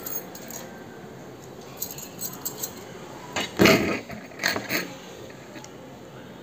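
Stacked pink and gold bangles clinking and jangling as the wearer moves her arms, with scattered clinks and a louder clatter a little past halfway.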